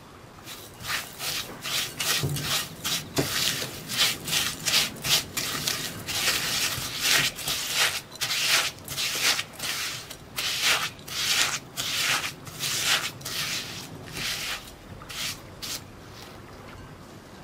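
Rubber spatula scraping and pressing a stiff mix of melted milk chocolate and crushed crisp cookie crumbs around a glass bowl, in short rasping strokes about two a second, stopping shortly before the end.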